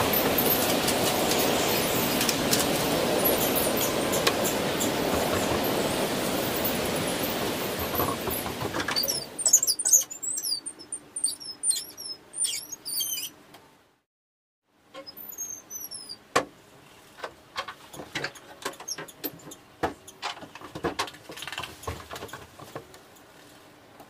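A loud, steady rushing noise for the first nine seconds or so, then quick high bird chirps for a few seconds. After a moment of silence come irregular sharp clicks and taps with a few faint chirps.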